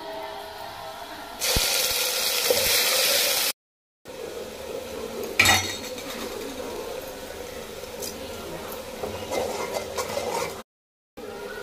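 A ground paste dropping into hot oil in an aluminium pot and sizzling loudly for about two seconds. Then a steel spatula stirs and scrapes the frying paste, with a sharp clink against the pot about five and a half seconds in. The sound is broken twice by short silent gaps.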